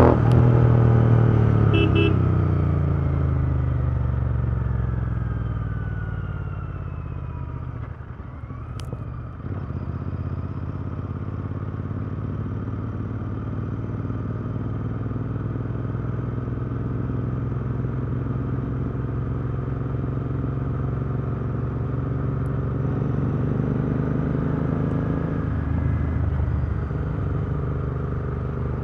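Royal Enfield Continental GT 650's parallel-twin engine, fitted with a Powerrage long-type aftermarket exhaust, winding down as the throttle is closed: its note falls steadily over the first several seconds. A single click comes about nine seconds in. After that the engine runs steadily at low revs, picking up a little near the end.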